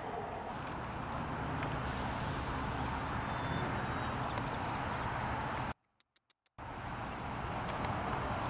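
Steady, even outdoor noise, strongest in the low range, with no distinct calls or voices. It cuts out almost completely for under a second about six seconds in, with a few faint clicks, then returns.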